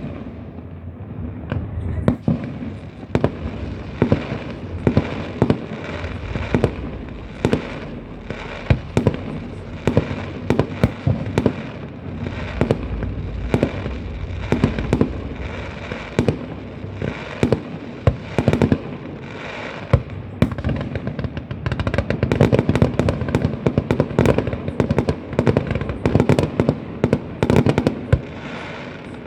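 Fireworks display: a continuous barrage of bangs and crackling bursts, several a second, growing denser about three quarters of the way through.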